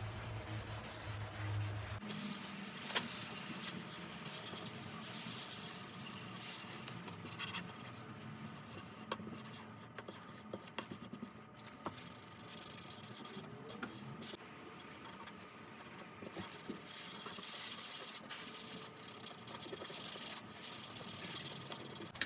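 Stain being rubbed onto a wooden dresser panel: faint, uneven strokes of rubbing with a few small clicks and taps.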